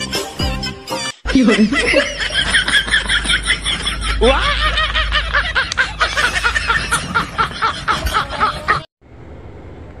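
Long run of rapid, high-pitched laughter after a short bit of music that cuts off about a second in. The laughter stops abruptly about nine seconds in, leaving faint background noise.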